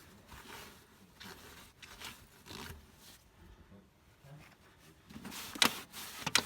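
Short scraping and rustling handling noises from work on tractor brake parts, with two sharp metal knocks near the end.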